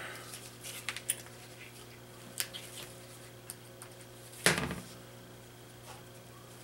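Small clicks and taps of tools and electronic parts being handled on a workbench during soldering, with one louder sharp knock about four and a half seconds in, over a steady low hum.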